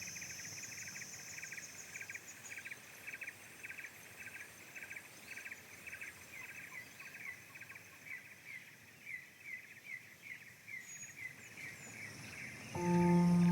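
Outdoor ambience: an animal's short chirping call repeated about two to three times a second, the notes slurring slightly downward, over a faint steady hiss. Near the end, soft ambient music with sustained tones comes in.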